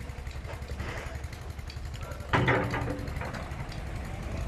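Massey Ferguson 385 tractor's four-cylinder diesel engine running steadily with a low rumble as it pulls a trolley heavily loaded with soil. About halfway through, a sudden louder burst of sound rises over it for under a second.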